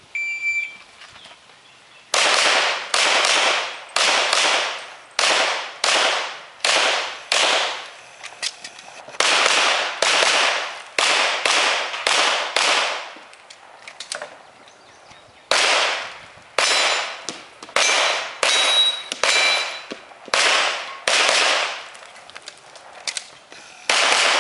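A shot-timer start beep, then a Glock 35 .40 S&W pistol fired in fast strings of shots, with short breaks between strings while the shooter reloads or moves, the longest near the middle.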